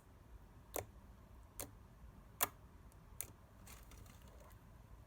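Slime being squeezed and stretched by hand, giving four sharp clicks about a second apart, the loudest about two and a half seconds in.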